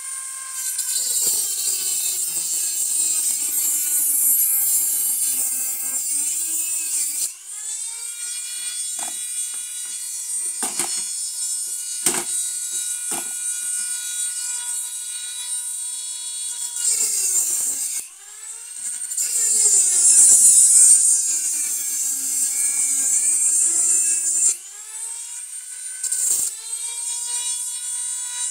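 Small abrasive cutoff wheel on a handheld rotary tool cutting through the steel barrels of a double-barrel 12-gauge shotgun. The high whine sags in pitch as the disc bites into the metal and climbs back when it eases off, with a few sharp knocks around the middle.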